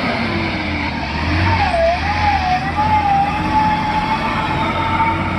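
Vehicle rumbling, with a steady high-pitched tone that dips and wavers briefly about a second and a half in.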